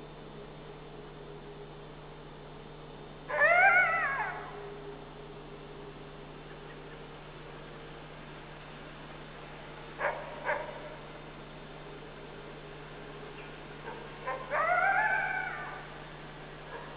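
Red wolves whining: a high, arching call about a second long a little over three seconds in, two brief sharp sounds around ten seconds, and another arching whine near the end.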